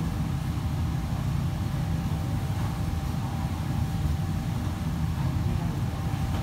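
Steady low machine rumble of a working commercial kitchen, with a thin steady hum over it.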